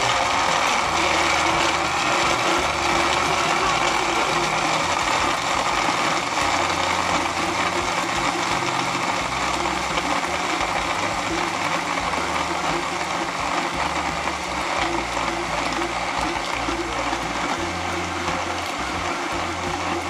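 Countertop blender running steadily at full speed, crushing ice with milk into a smoothie.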